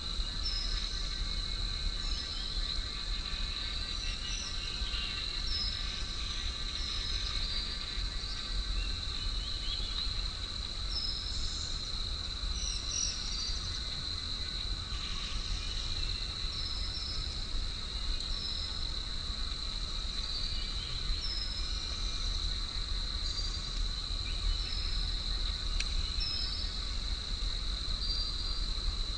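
Forest insects keep up a steady, high, ringing drone. Short high chirps repeat about once a second over it, with a low wind rumble underneath.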